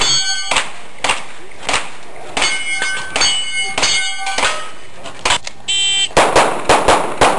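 Pistol shots, several followed by the ring of hit steel targets, then a rapid string of shots about six seconds in.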